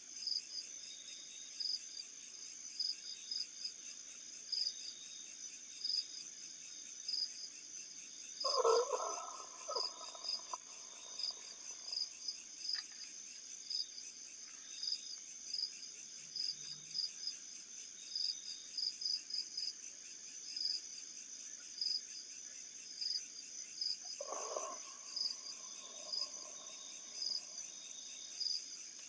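Insects chirping steadily in a high, regularly pulsing chorus. Twice, about 9 seconds in and again near 24 seconds in, a short mid-pitched sweeping call rises over it, the first a little louder.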